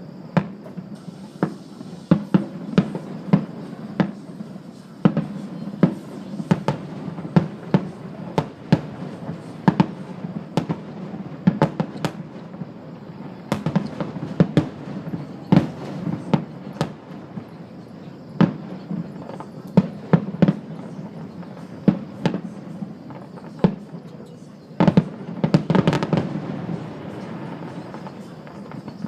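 Aerial fireworks bursting in an irregular series of sharp bangs, often one or two a second, with a denser barrage of bangs and crackle near the end.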